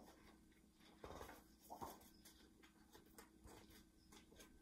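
Near silence with faint rustles and soft taps from a hardcover picture book being handled and opened, two slightly louder ones about a second and two seconds in.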